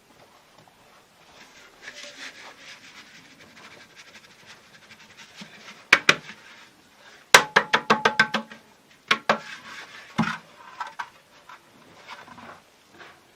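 Sharp knocks: a couple about six seconds in, then a quick run of about eight, then a few more, over faint rustling.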